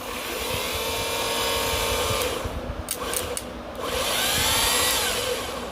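Electric starter motor from a John Deere mower, with its refitted brush holder assembly, spinning freely on a bench off a portable battery. It runs twice with a whine that rises as it spins up, with a few sharp clicks between the two runs as the connection is made and broken. The motor runs.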